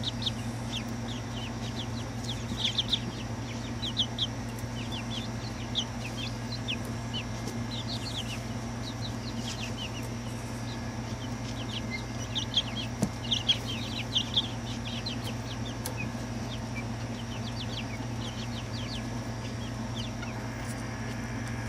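Young chickens peeping, short high chirps coming in scattered flurries, over a steady low hum.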